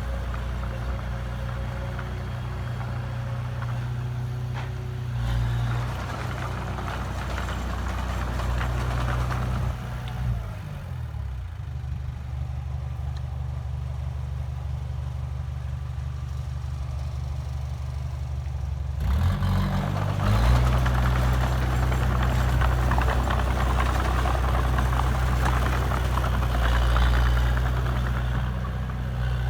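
Heavy diesel engine of an earthmoving machine running. It eases down about ten seconds in, runs lower and quieter for several seconds, then revs back up near the nineteen-second mark and runs harder.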